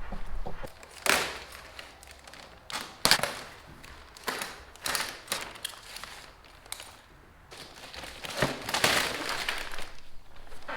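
Scattered sharp knocks and taps at irregular spacing, a second or more apart, with a longer rustling scrape about eight and a half seconds in.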